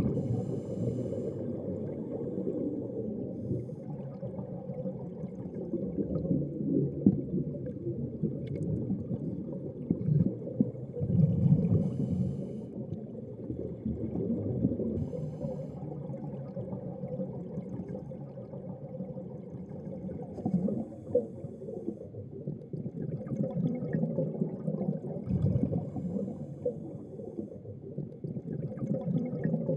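Underwater sound of scuba divers breathing through their regulators: a steady muffled low rumble of water, with gurgling bursts of exhaled bubbles every few seconds.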